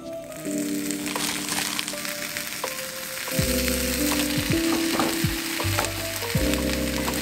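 Eggs and thin slices of deli meat sizzling as they fry in oil in a nonstick pan, with a few light spatula taps, over background music whose bass comes in about halfway through.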